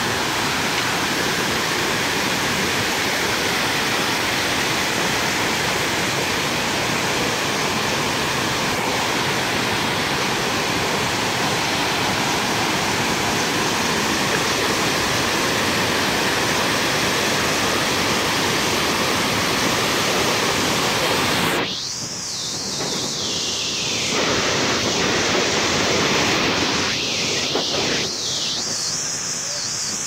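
Waterfall cascades rushing, a loud steady wash of water noise. About two-thirds of the way through it drops abruptly and comes back weaker and uneven.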